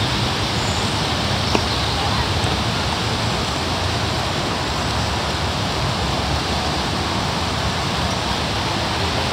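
Wind buffeting a camcorder microphone: a steady rushing noise with a fluttering low rumble. A small click comes about one and a half seconds in.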